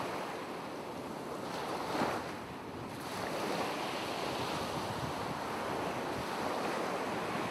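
Ocean surf and wind: a steady rush of noise that swells briefly about two seconds in.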